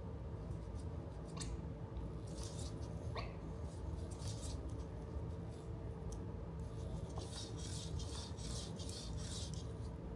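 Faint rustling and scraping bursts over a steady low hum, with a sharp click about a second and a half in and a short rising squeak about three seconds in.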